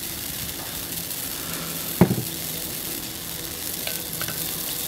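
Freshly added oil sizzling in a wok heating over a propane burner, a steady hiss, with one sharp knock about two seconds in and a few light clicks near the end.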